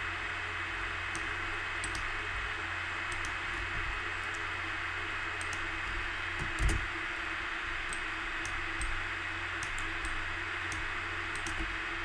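Steady hiss and low hum from the recording setup, with scattered light clicks of a computer mouse and keyboard and one soft thump about six and a half seconds in.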